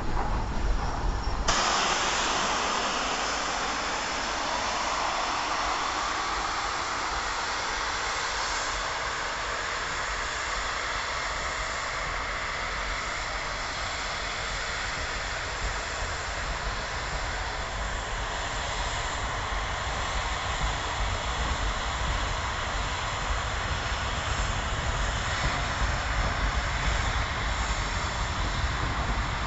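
For about the first second and a half, Bulleid Battle of Britain class pacific 34053 'Sir Keith Park' steams past close by. Then a steady rushing roar follows as a steam-hauled train pulls away under a tall plume of steam, with its coaches rolling along the track.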